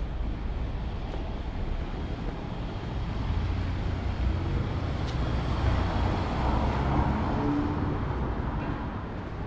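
City street traffic on a rainy day, tyres on wet road under a steady low rumble, with a vehicle passing that swells up from about three seconds in and fades away near the end.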